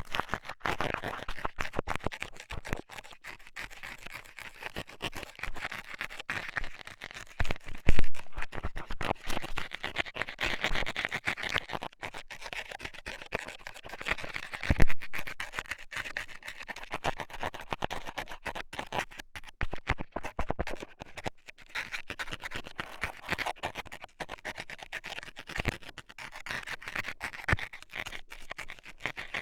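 Metal scaler scraping and poking inside an ASMR microphone's ear: a dense, crackly run of close-up scratches, with two louder knocks, about eight and fifteen seconds in.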